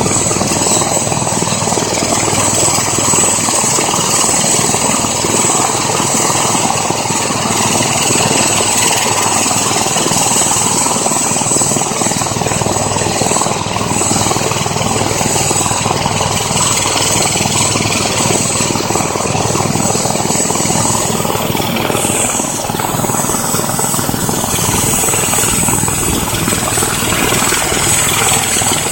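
Airbus EC145 helicopter's twin turboshaft engines running on the ground with the rotors turning: a steady high turbine whine over rotor and exhaust noise. The whine dips briefly about 22 seconds in, then steadies again.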